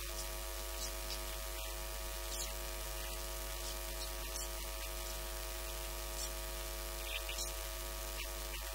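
Steady electrical mains hum and buzz with many steady tones, with a man's voice faint beneath it.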